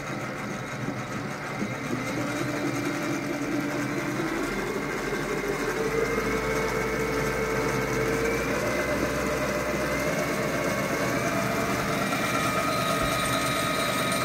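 Creworks 9x24-inch variable-speed mini lathe on its first start-up. The motor, drive belt and exposed change gears run with a whine that rises in pitch as the spindle speed is turned up, then settles into a steady run. The change gears are running dry, with no lubrication.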